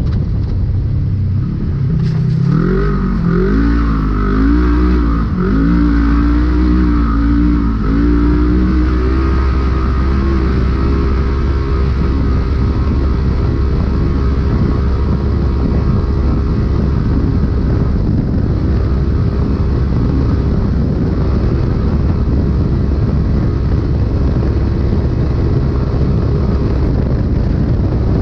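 Polaris RZR race UTV's engine heard from inside the cab, revving up and down several times, then holding fairly steady at speed, over a heavy low rumble.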